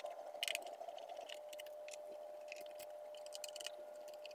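Faint clicks and scratchy ticks of a small T5 Torx screwdriver working screws out of a laptop's aluminium bottom case. A cluster of quick clicks comes in the second half, over a faint steady hum.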